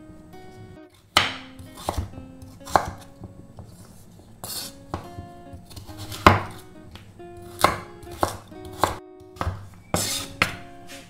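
Chef's knife chopping raw sweet potato on a wooden cutting board: about a dozen sharp, uneven cuts, roughly one a second, each ending in a knock of the blade on the board. Soft background music plays underneath.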